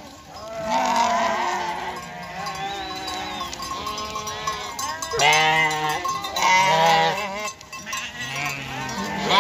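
Small livestock bleating: about half a dozen separate calls, each half a second to a second long with a wavering pitch.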